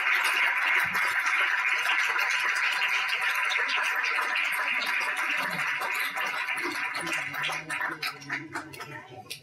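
Audience applauding in a room, dense at first, then thinning and fading out over the last few seconds as voices begin to rise.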